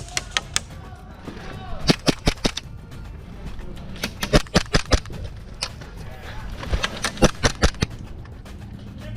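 Airsoft guns firing in short volleys of quick, sharp shots, four volleys in all: at the start, about two seconds in, around four to five seconds in, and about seven seconds in.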